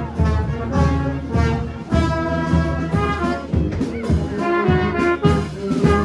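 Marching brass band playing a tune in the street, trumpets and other brass carrying the melody over low notes and a beat.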